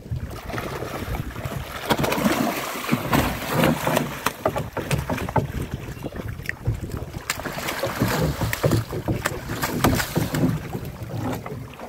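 Noise aboard a small fishing boat at sea: wind buffeting the microphone, with water and many irregular knocks throughout.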